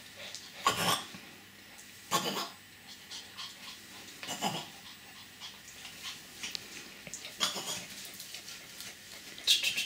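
A small dog making short, sharp play noises, about five of them a couple of seconds apart.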